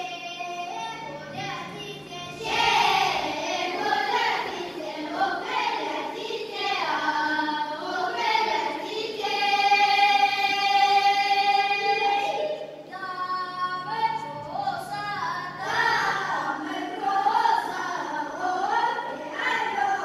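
A children's folk ensemble singing together in the Russian folk style, with one long held note about halfway through.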